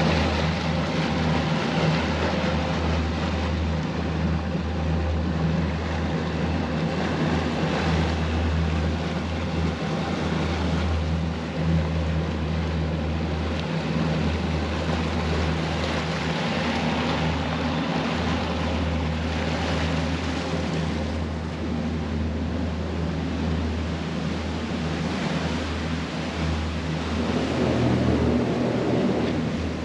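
Boston Whaler's outboard engines running steadily, a low hum under a wash of water and wind noise.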